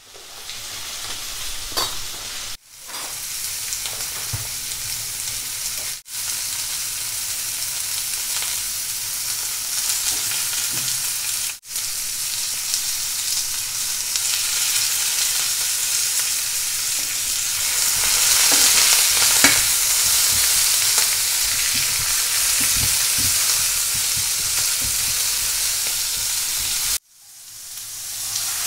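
Sliced carrots and onion sizzling in oil in a non-stick frying pan, a steady hiss broken by a few sudden short gaps. Near the end it cuts off and swells back up as water is poured into the hot pan.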